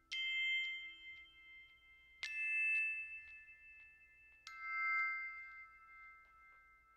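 Soundtrack music of three ringing chime notes, struck about two seconds apart, each sustaining and slowly fading, with light tinkles between them.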